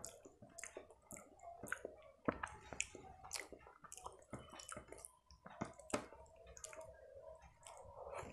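Close-miked eating by hand: fingers squishing rice into wet curry, mixed with wet chewing and lip smacks, heard as irregular short clicks and smacks.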